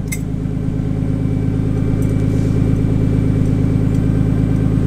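Nissan Skyline R32's RB20DET turbocharged straight-six idling steadily through a newly fitted ISR turbo-back exhaust, still running its catalytic converter.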